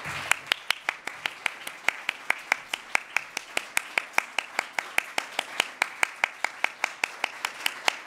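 Audience applauding, with one pair of hands clapping loudly and evenly, about five claps a second, over the softer clapping of the rest of the room.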